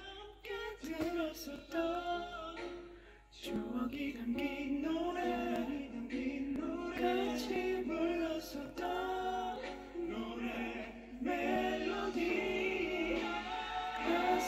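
Music with singing voices, several held melodic lines at once, with a short break about three and a half seconds in.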